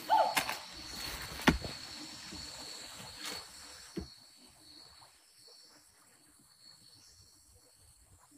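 Night insects calling with a steady high-pitched tone, broken by several sharp clicks and knocks of handling in the first few seconds. About four seconds in the sound drops quieter, leaving only faint insect calls.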